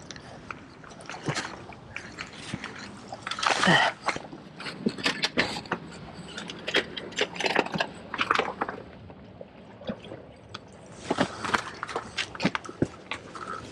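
Irregular clicks, knocks and scrapes of fishing gear and a landing net handled among barnacle-covered jetty rocks while a hooked fish is wedged in a rock crack, with louder scuffing about four seconds in and again near eleven seconds.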